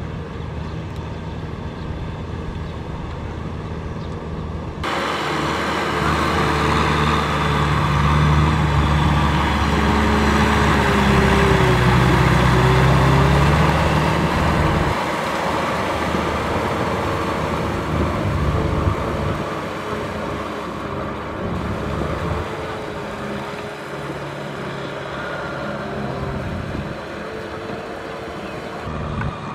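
Kubota M6040 tractor's diesel engine running steadily under load as it drags a tiller through a flooded rice paddy. It grows louder about five seconds in, is loudest for the next several seconds, and then eases off as the tractor moves away.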